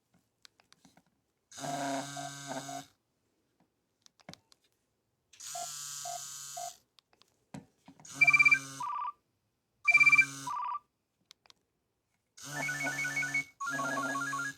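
Nokia 3120 mobile phone previewing a series of short polyphonic ringtone snippets, about five in all, each a second or two long. The previews are played one after another with brief pauses and faint clicks between them, as the ringtone list is scrolled.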